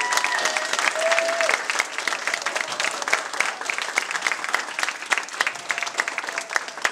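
Audience applauding with dense, irregular clapping that thins out somewhat toward the end. A few voices rise over it in the first second and a half.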